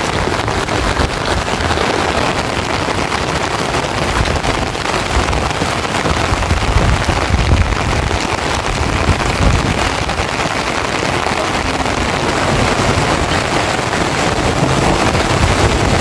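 Heavy rain falling steadily, with an uneven low rumble of strong wind on the microphone.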